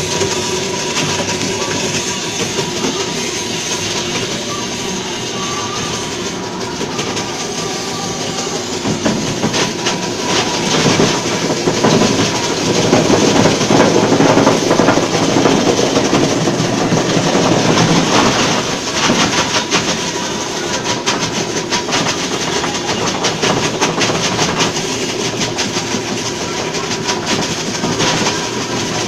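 Electric ice block crusher running, its rotor clattering fast over a steady whine as block ice is fed in and ground into crushed ice. The grinding grows louder from about ten seconds in to about nineteen seconds, then eases.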